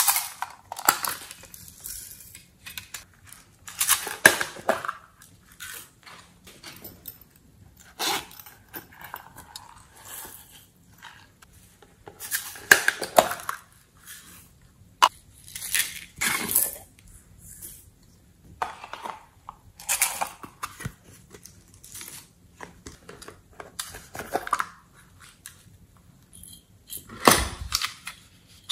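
Small plastic cases and pots handled and tipped over a glass dish, with glitter and sequins falling onto slime: clusters of clicks, taps and crackly rustles about every four seconds.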